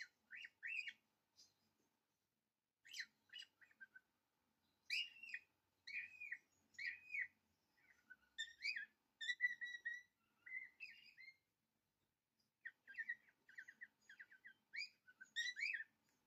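Small birds chirping and twittering in short phrases of quick rising-and-falling notes, with brief gaps between phrases and a rapid run of repeated chirps after about twelve seconds.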